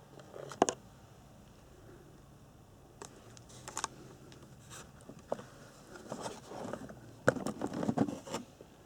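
Hands handling the packaging and plastic parts of a boxed RC buggy: scattered clicks, scrapes and crinkles, with a sharp click about half a second in and a busier run of knocks and rustling near the end.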